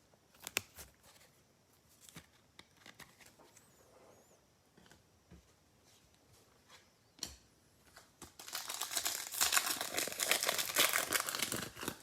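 A few scattered light clicks, then from about eight and a half seconds a loud, dense crinkling and tearing as a plastic trading-card pack wrapper is ripped open and crumpled.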